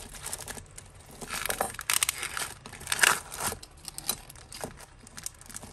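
Plastic packaging crinkling and rustling as jewellery is unbagged by hand, with a few light clicks scattered through it.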